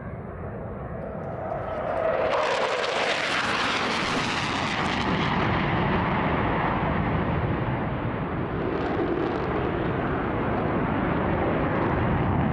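F-15S fighter jets flying past, their jet engines giving a loud steady roar. The roar swells about two seconds in, and its hissing top eases after about five seconds while the lower rumble goes on.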